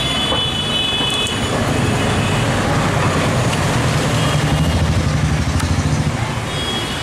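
Roadside street traffic with a steady engine rumble. A vehicle horn sounds for about a second and a half at the start and again near the end.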